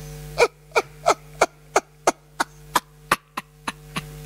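A man laughing heartily in a run of about a dozen short "ha" bursts, about three a second, each falling in pitch, over a steady low hum.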